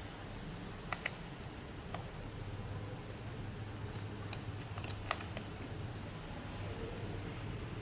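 Scattered light clicks and taps of small hand tools and parts against a laptop's plastic case, over a steady low hum.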